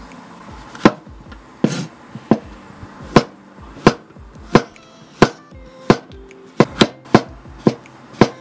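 Chef's knife slicing button mushrooms on a wooden cutting board: about a dozen sharp knocks of the blade striking the board, roughly one every two-thirds of a second.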